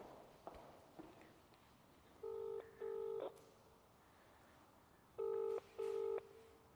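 Mobile phone on speaker ringing out on an outgoing call: the British double ringing tone, two pairs of quick rings about three seconds apart, while waiting for the other end to answer.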